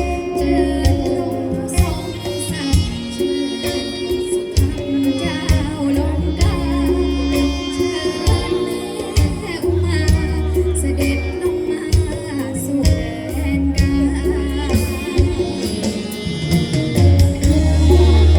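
A song with singing over a steady bass line and percussion.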